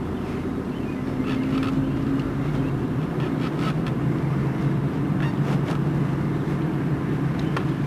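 A car driving slowly, heard from inside the cabin: a steady low engine hum with road and tyre noise, and a few faint ticks.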